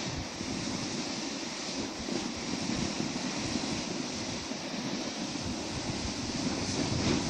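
Snowboard sliding and scraping over hard, wind-crusted snow, a steady hiss, with wind buffeting the microphone; it grows a little louder near the end.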